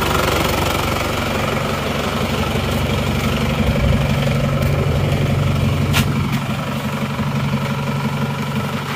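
Isuzu Panther diesel engine idling steadily while still cold, not yet at running temperature. A single sharp click about six seconds in.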